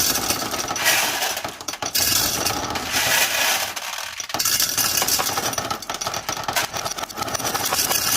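Glass marbles clattering and cracking inside a meat grinder as it crushes them: a dense, continuous stream of clinks and cracks.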